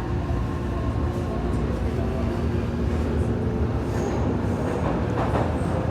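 Odakyu train running, a steady rumble with constant whining tones held underneath. A few brief, faint high squeaks come near the end.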